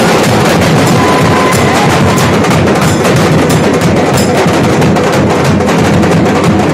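Nashik dhol, large barrel drums played together by a drum band, beating out a loud, dense rhythm without a break.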